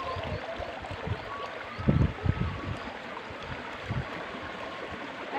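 Water running along a rice-field irrigation ditch, a steady rushing, with a brief louder low rumble about two seconds in.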